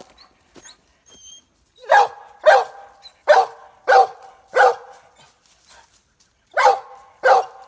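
Hunting dog barking at a jaguar treed above it: a quiet first two seconds, then five sharp barks about two-thirds of a second apart, a pause of about two seconds, and two more barks near the end.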